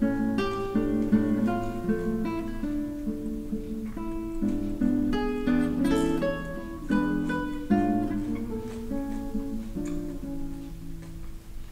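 Background music: acoustic guitar playing a plucked tune.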